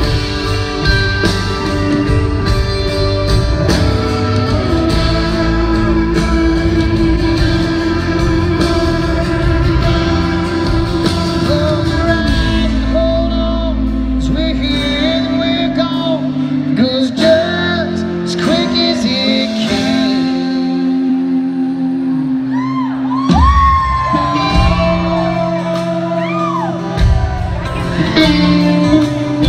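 Live country band playing, with electric and acoustic guitars, bass and drums, and a male voice singing. The bass drops out for a while in the middle and comes back.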